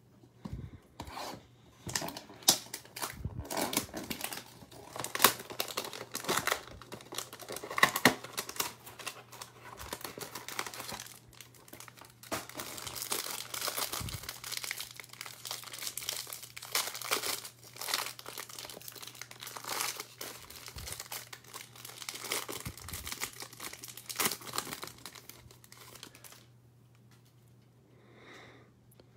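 Plastic wrapper around a stack of trading cards crinkling and tearing as it is opened, with handling of the cardboard box, an irregular run of crackles that stops a few seconds before the end.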